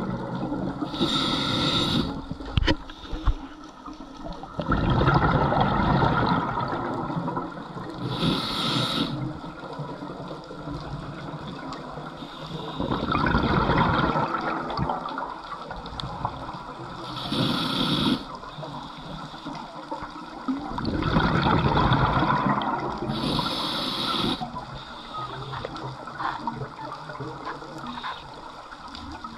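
A scuba diver's regulator breathing underwater: four short hissing inhales, each answered by a longer bubbling rush of exhaled air, in a slow steady cycle.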